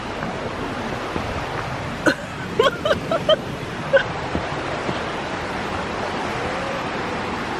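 Creek water rushing over rocks in a steady hiss, with a few brief sharp sounds about two to four seconds in.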